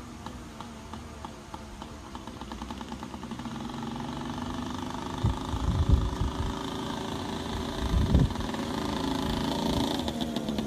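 Small two-stroke engine of a Yamaha PW80 mini dirt bike running as the bike rides toward the microphone, growing steadily louder as it nears. A few dull low thumps come around the middle.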